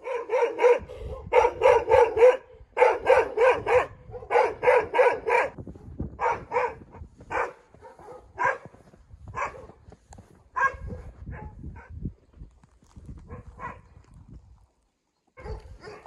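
An animal calling in quick runs of short, pitched calls, four or five to a run, then more sparsely after about six seconds.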